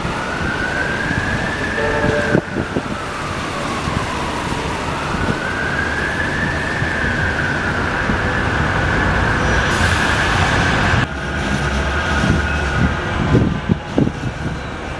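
Emergency vehicle siren sounding a slow wail, rising and falling in pitch about twice before cutting off suddenly about eleven seconds in, over a steady rumble of street traffic.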